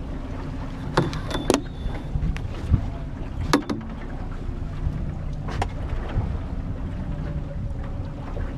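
Fishing boat's outboard motor running steadily, with a few sharp knocks on the boat about a second in, at about a second and a half, and again near three and a half and five and a half seconds in.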